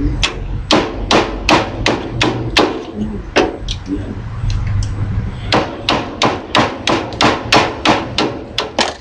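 Repeated hammer blows, about two to three a second with a short lull in the middle, striking along the welded seam of a microwave oven transformer to break it open and free its copper or aluminium windings.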